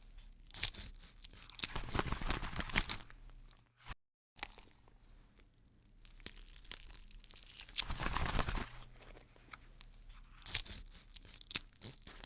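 Dry crinkling, crackling and tearing sounds in several bursts, with a brief total dropout about four seconds in.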